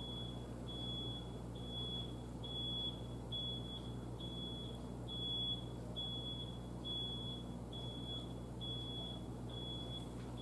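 An electronic alarm beeping: one short, high, faint beep repeating evenly a little faster than once a second.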